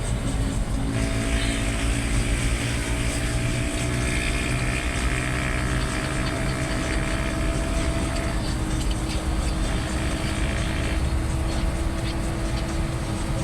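Vehicle engine running steadily with a constant drone and road rumble while travelling along a highway.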